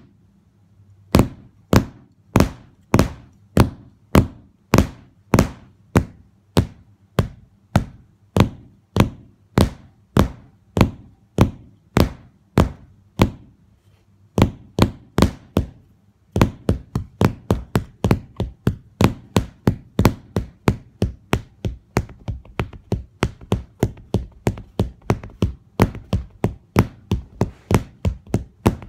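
A wooden drumstick striking a hard surface in a steady beat, about two hits a second, speeding up to about three or four a second just past halfway.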